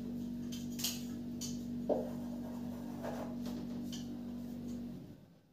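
Faint, short scratching strokes of writing, a few in a row, over a steady low hum that cuts off about five seconds in.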